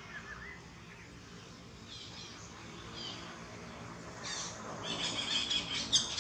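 High chirping animal calls over a quiet outdoor background: a few faint chirps in the first three seconds, then a louder, rapid run of chirps from about four seconds in.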